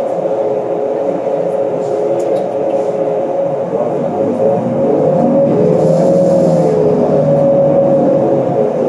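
Cabin sound of a 2012 New Flyer C40LF natural-gas transit bus under way: a steady engine and drivetrain whine over a low rumble. About five seconds in it gets louder as the bus gathers speed, the whine rising and then falling in pitch.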